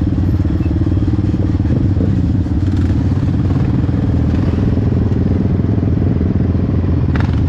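An off-road ATV engine running steadily under way, with a few short clicks near the end.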